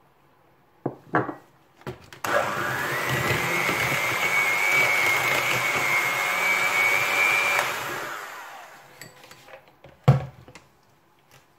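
Electric hand mixer with twin beaters switched on about two seconds in, running steadily with a high whine for about five seconds while it beats sugar into a yellow butter mixture for cake batter, then switched off and winding down. A few light knocks come before it starts, and one sharp knock a couple of seconds after it stops.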